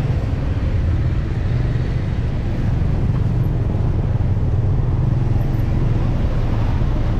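Steady street traffic noise: a continuous low rumble of passing vehicles with no single event standing out.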